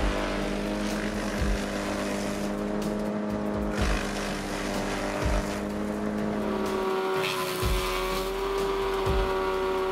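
Wood chipper's engine running steadily under load, its pitch shifting about seven seconds in.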